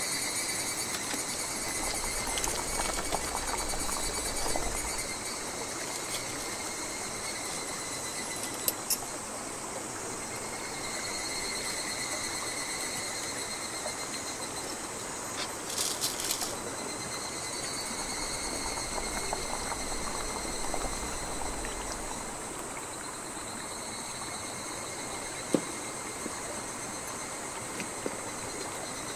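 Insects chirping steadily in several high, pulsing bands, with a few light clicks and knocks of cookware being handled.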